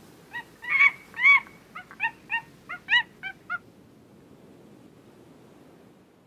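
A quick string of about nine short, high yelping calls over roughly three seconds, the first two loudest, over a low background hiss.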